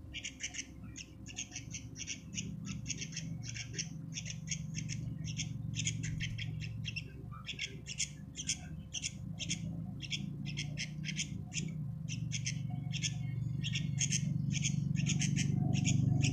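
Sooty-headed bulbul chicks calling without pause in short, harsh, high chirps, about four a second, over a steady low hum.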